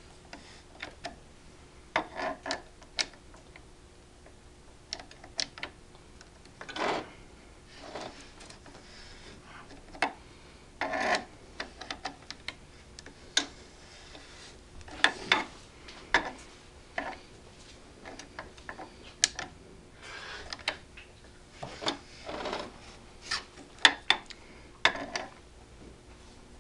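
Steel barrel nut wrench working an AR-15 barrel nut by hand: irregular metal clicks and short scrapes as the wrench is turned and reset on the nut, a few longer rubs among them.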